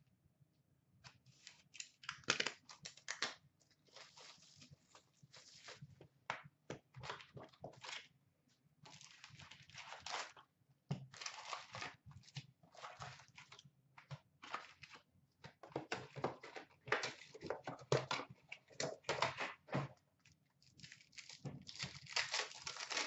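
Upper Deck hockey card hobby box torn open and its foil card packs pulled out and handled: a long, irregular run of short crackling, rustling tears and scrapes of cardboard and pack wrappers, with brief pauses between.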